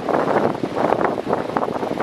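Electric fan running: a rushing airflow noise that wavers unevenly in loudness.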